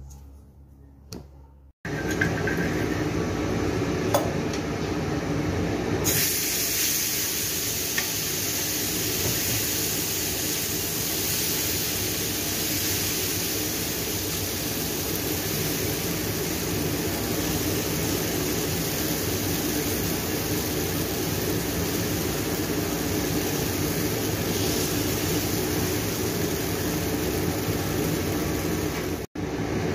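Batter sizzling on a hot flat pan on a gas stove: a steady hiss over a low rumble. It starts suddenly about two seconds in and turns brighter and hissier a few seconds later.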